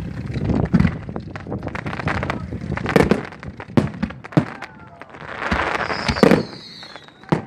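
Fireworks going off in a quick, irregular run of sharp bangs and crackles. The loudest bangs come about three seconds in and just after six seconds. A thin whistle falls in pitch just after six seconds.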